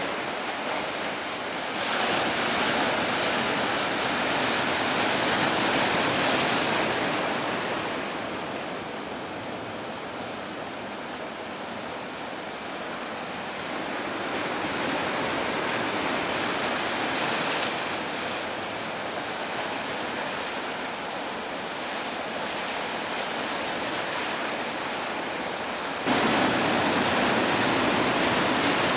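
Ocean surf: waves breaking and white water rushing on the shore, swelling and easing every few seconds. The sound gets suddenly louder about three seconds before the end.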